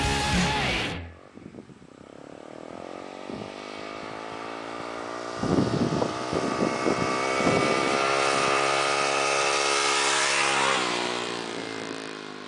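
Rock music cuts off about a second in. Then a single motorcycle engine approaches along a dirt road, growing steadily louder with a few brief thumps midway. Its pitch drops as it passes, about eleven seconds in, and it fades away.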